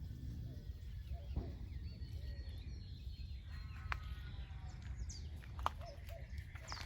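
Birds chirping and calling in short, wavering notes over a low steady rumble, with a few faint clicks.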